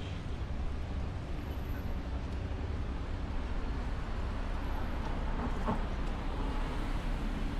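City street ambience: the steady low rumble of road traffic, with a vehicle engine growing a little louder in the second half.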